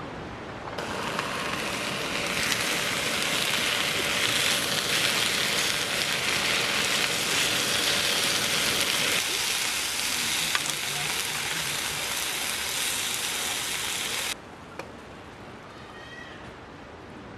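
Food frying in a pan, a steady dense sizzle that starts about a second in and cuts off abruptly near the end.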